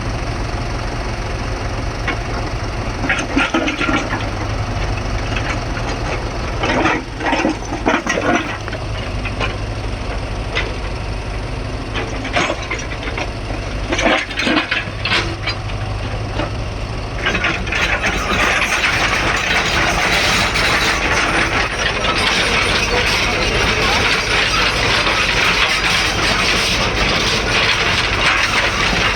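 Backhoe loader's diesel engine running steadily with a low hum, with scattered clanks and rattles. A little past the middle a continuous rattling noise sets in and carries on.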